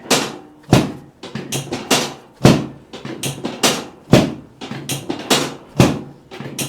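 Chiropractic drop table clacking as its drop section falls under repeated thrusts: a series of sharp knocks, the loudest every second and a half or so with lighter ones between. It is a drop-table adjustment meant to set the sacrum.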